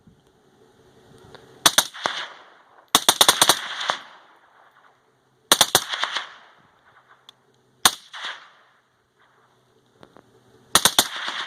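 Suppressed AR-10 rifle in .308 firing: sharp shots in quick doubles, with a rapid string of about seven shots about three seconds in. Each shot is followed by a short decaying echo. The doubles fit a binary trigger firing on both pull and release.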